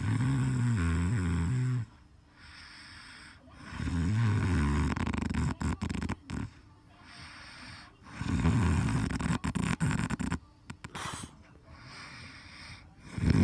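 A man snoring in his sleep: three long, low snores roughly four seconds apart, with quieter breaths between them and another snore starting near the end.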